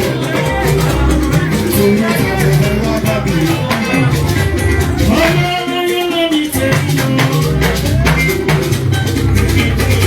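Loud church band music with a steady beat, rattling shakers and a heavy bass line. About halfway through, the bass drops out briefly while a held, wavering melody carries on.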